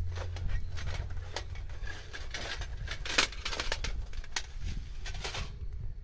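Rustling and handling of a fabric gear bag as gear is pulled out of it, with scattered clicks and one sharp knock about three seconds in. The handling stops shortly before the end.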